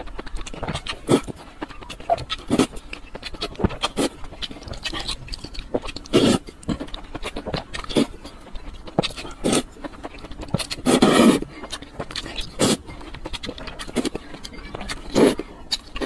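Slurping and chewing of spicy noodles in broth: a string of short wet sucks and smacks, with one longer slurp about eleven seconds in.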